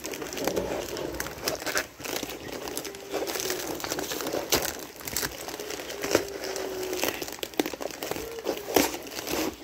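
Foil insulated shipping liner being pulled open and handled by hand, crinkling and crackling in irregular bursts.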